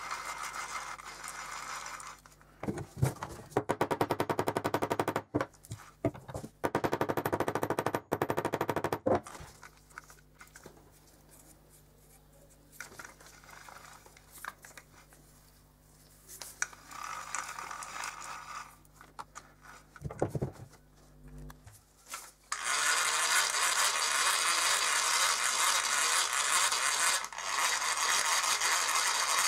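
Old geared hand crank drill handled and worked on metal: spells of rapid metallic clicking and rattling, then, in the last seven seconds or so, a loud steady rasping whir as its crank is turned and the gear train spins.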